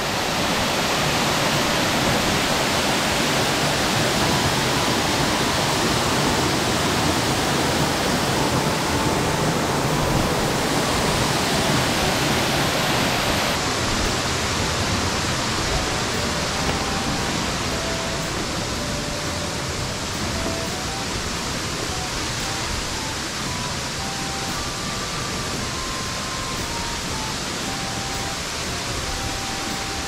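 Waterfall: a steady, dense rush of falling water close by, easing slightly in the second half.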